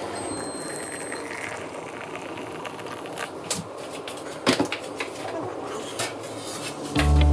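A few sharp light clicks and knocks over a steady faint hiss, typical of cups and utensils being handled in a kitchen; background music comes in near the end.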